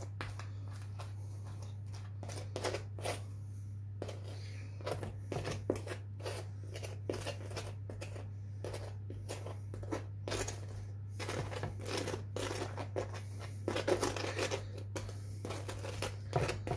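A small butter knife scraping soft butter over the crisp crust of a freshly baked Afghan flatbread: repeated rough scraping strokes, busiest in the second half. A steady low hum runs underneath.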